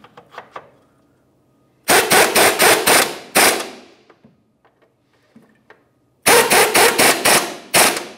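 Handheld air tool run in two bursts of rapid hammering, each about a second and a half long, the second starting about six seconds in, as it drives the rear bumper's 18 mm mounting bolts tight. Faint metal clicks between the bursts.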